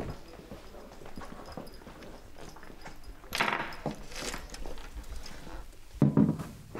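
Handling noises: scattered footsteps and knocks, a rustle of fir branches about three seconds in as a Christmas arrangement is put down on a counter, and a louder thump near the end as a bottle is set beside it.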